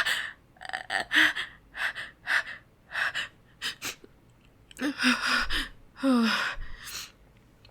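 A woman's quick, catching pre-sneeze breaths and gasps, many short ones in a row. About five and six seconds in they build into two longer voiced gasps that fall in pitch. The sneeze is fought off and held back, not let out.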